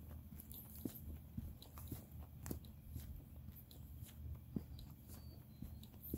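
Footsteps of a hiker walking on a trail: faint, irregular crunches and clicks over a low rumble.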